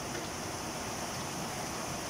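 Steady hiss of fishballs frying in hot oil in a wok, mixed with rain falling outside.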